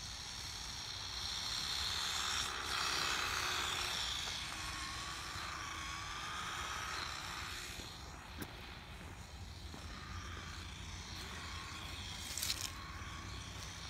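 Small electric RC truck (Losi Mini-T) driving on asphalt: a thin, wavering motor whine over tyre hiss that grows louder over the first few seconds and fades away, with a sharp click near the end and a steady low wind rumble on the microphone.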